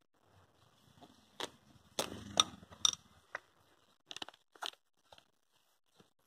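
Handling noise from a lavalier microphone cable being wound and tucked into a padded fabric pouch: a run of rustles and sharp clicks, loudest in the first half.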